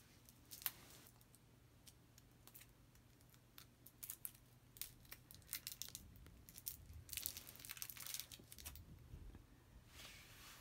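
Faint crinkling and tearing of a SweeTarts candy wrapper being opened by hand, in scattered bursts that are busiest about four seconds and seven seconds in.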